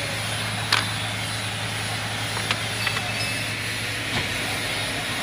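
Caterpillar 966H wheel loader's diesel engine idling steadily, heard from inside the cab, with a few short sharp clicks, the loudest under a second in.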